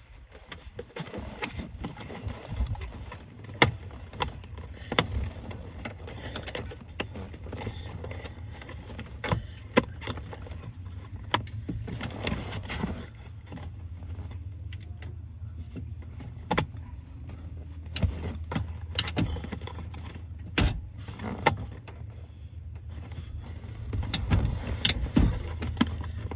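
Irregular clicks, knocks and rattles of hands working at a truck's lower dash panel and wiring, over a steady low hum.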